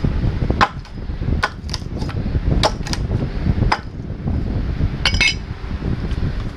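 Hatchet chopping into a dry Osage orange limb to split it: a series of sharp chops, irregularly spaced about half a second to a second apart, followed about five seconds in by a brief ringing clink.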